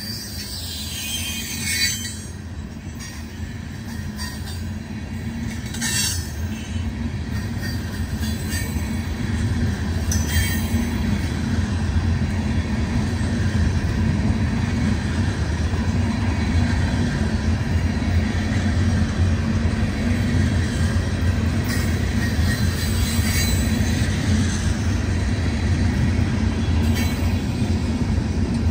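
Freight train of steel tank cars rolling past: a steady low rumble of wheels on rail that grows louder. A few brief sharp, high noises come in the first ten seconds or so.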